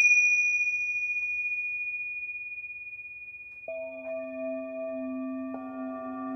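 Singing bowls ringing. A high, bell-like tone struck just before fades slowly with a pulsing shimmer. Lower, fuller bowl notes are struck about three and a half seconds in and again near the end, each ringing on.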